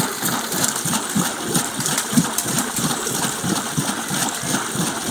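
Many domestic pigeons cooing at once, a dense, continuous overlapping low cooing.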